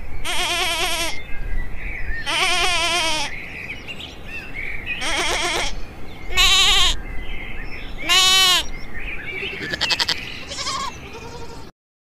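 Goat bleating again and again: about five loud, wavering bleats, each under a second long, then a couple of fainter, shorter calls, cutting off suddenly just before the end.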